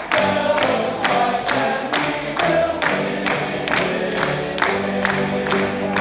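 Men's choir singing with grand piano accompaniment, over a steady beat of sharp strikes about twice a second.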